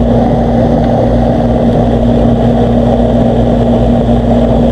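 Old Trane R22 air-conditioning condensing unit running: a steady loud hum under the rush of its fan.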